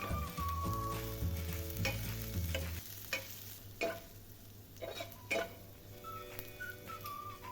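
Frog being stir-fried: oil sizzling, with several sharp clinks of a stirring utensil against the pan.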